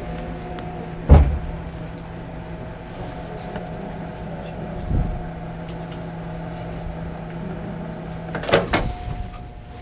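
Electric stand mixer with a wire whisk switched on with a sharp click about a second in, its motor running with a steady low hum. A knock comes halfway through, and a cluster of knocks near the end as the hum stops.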